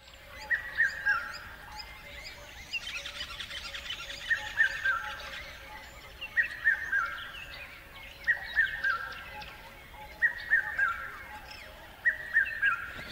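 Outdoor birdsong. One bird repeats a short phrase of three or four quick, falling whistled notes about every two seconds, while other birds chirp and trill behind it.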